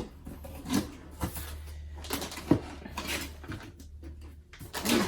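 Irregular knocks, clicks and rustles of packaging being opened and handled, over a steady low hum.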